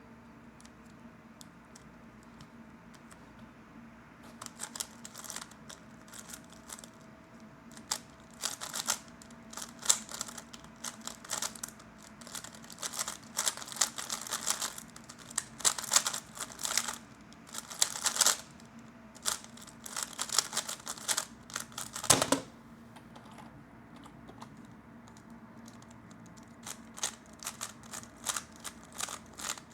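A 3x3 Rubik's cube being turned fast during a solve: dense runs of plastic clicking and clacking, starting a few seconds in. A single sharper knock comes after about twenty seconds, then a short lull before more turning near the end.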